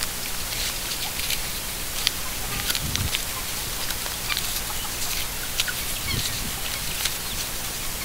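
Farmyard ambience: a steady hiss with scattered small clicks and faint short bird chirps, and two brief low rumbles, about three and six seconds in.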